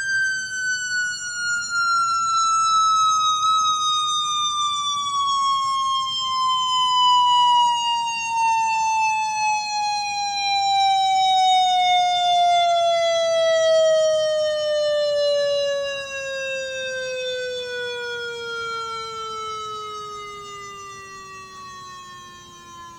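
Electronic siren played through a 15-watt amplifier, sounding one long falling wail: the pitch drops slowly and steadily the whole time, and the sound grows fainter over the last several seconds.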